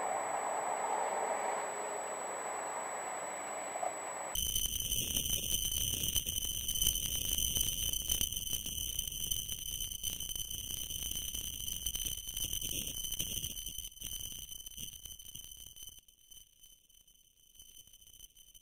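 Road and engine noise heard from a car in slow traffic, then after about four seconds an abrupt switch to a steady high-pitched whine with overtones over a low rumble of wind and road noise from a ride on a two-wheeler. It fades near the end.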